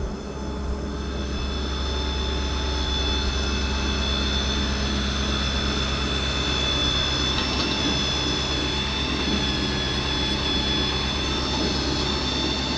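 Pump on a tire service truck running steadily while pumping calcium chloride ballast into a tire, with a low drone and a high-pitched whine. The sound builds up over the first second or two.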